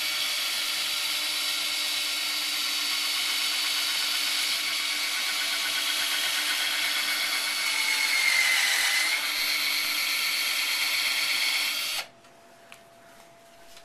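Cordless drill running steadily as it bores an axle hole into the wooden block of a pinewood derby car. The pitch sags briefly about eight seconds in, and the drill cuts off suddenly near the end.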